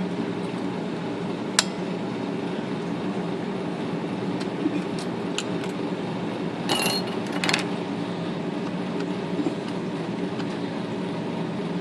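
Light metallic clicks and clinks of hand tools and small parts as a Smith Corona electric typewriter's mechanism is taken apart: one sharp click about a second and a half in, a few small ticks, and a cluster of clinks around seven seconds in, over a steady hum.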